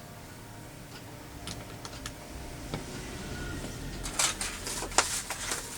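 Light clicks and taps of small plastic kit parts and tools being handled on a workbench, with a cluster of sharper clicks about four seconds in.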